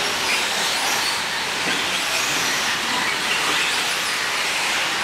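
A pack of electric 4WD short-course RC trucks racing on a dirt track. The sound is a steady hiss of tyres and drivetrains, with faint short whines from the motors rising and falling as the trucks speed up and brake.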